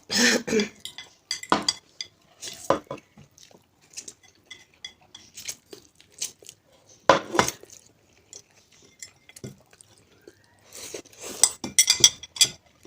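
Eating utensils clinking and scraping against dishes while noodles are eaten quickly, in scattered sharp clicks and knocks that bunch into a quick flurry near the end.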